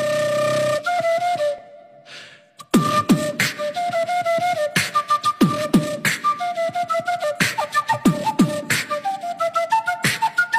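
Background music: a flute-like melody that stops briefly, then comes back about two and a half seconds in over a beat of deep drum hits that drop in pitch, about two a second.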